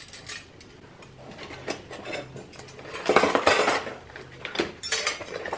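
Antique silver cutlery clinking together while hands rummage through brown wrapping paper in a cardboard box; the paper rustling is loudest about three seconds in.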